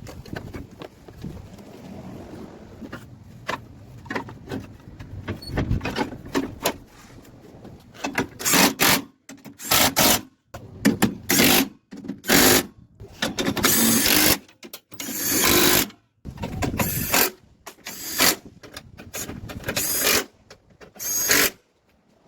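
Light clicks and rattles of hand tools on the front end of the vehicle, then a small power tool (a cordless driver or ratchet) running in short bursts from about a third of the way in, driving fasteners during reassembly.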